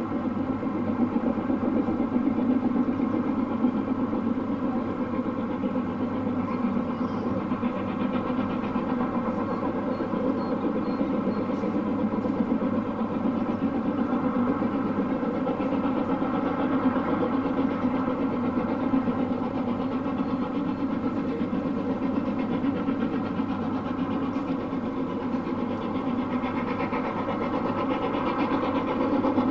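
Steam locomotive working a train on the main line, its exhaust beat running steadily and growing louder near the end as it approaches.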